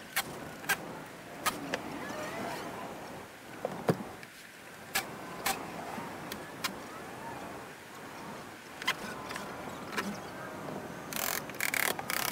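Scattered sharp knocks and clicks of tools and lumber being handled, then, about a second before the end, a cordless drill driving a screw into the wood framing in several short bursts.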